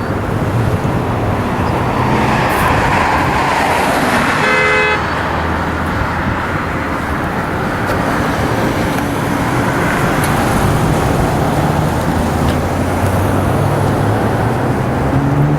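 Steady freeway traffic rushing past, swelling as vehicles go by, with a car horn sounding briefly about four and a half seconds in.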